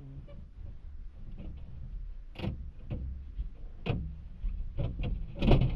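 A few sharp clicks and knocks from hands prying at a tractor joystick's housing, the loudest near the end, over a steady low rumble.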